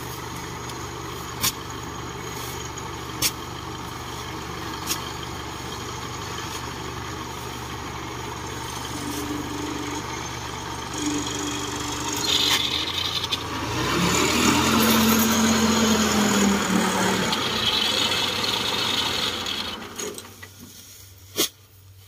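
Small rice combine harvester's engine running steadily, with a few sharp knocks in the first seconds. About two-thirds of the way through it gets louder and its pitch rises as the engine speeds up, then it shuts off near the end.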